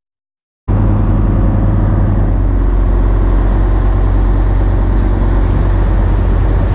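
A passenger ferry's engine running with a steady, loud low drone, heard from on deck. It cuts in suddenly under a second in, after total silence.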